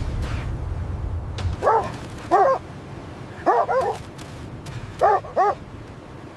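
Six short, yelping animal calls in three pairs, each rising then falling in pitch, over a low rumble that dies away about a second and a half in.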